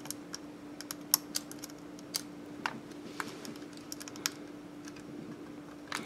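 Small, irregular clicks and taps of fingers pressing the tiny antenna wire connectors onto a laptop WiFi card, a dozen or so spaced unevenly. These connectors come off easily and are hard to get to stay down.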